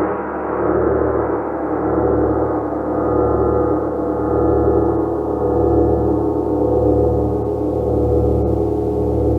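Large gong played continuously in a dense, shimmering wash of many overlapping tones. The sound swells and ebbs about once a second, with no single sharp strike standing out.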